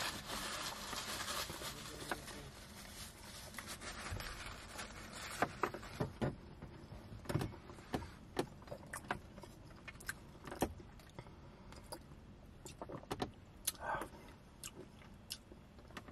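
Crinkling and rustling of a paper napkin and food wrappers being balled up in the hands for the first few seconds. After that come scattered light clicks and knocks as things are handled.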